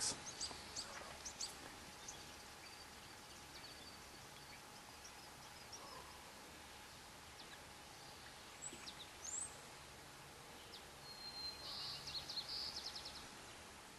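Quiet outdoor ambience with scattered faint bird chirps. A short, fast trill of bird song comes a little before the end.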